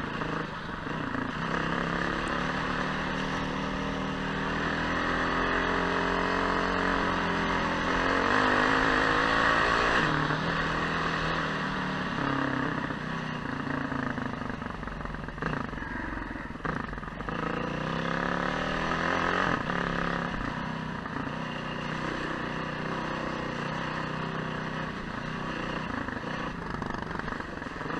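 Motorcycle engine running at low road speed, its pitch rising and falling with the throttle, loudest with a climb in revs about eight to ten seconds in.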